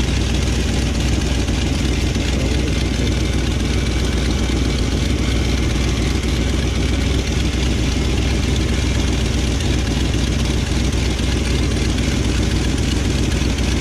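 Old plow truck's engine idling steadily under its open hood, with a strong low hum and no change in speed. Just before this the owner puts its running down to a vacuum leak and says it needs a tune-up.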